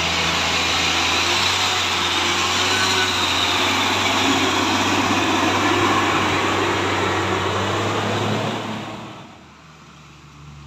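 Mitsubishi Fuso container truck's diesel engine running steadily as the truck drives past close by. The sound fades away about nine seconds in as the truck moves off.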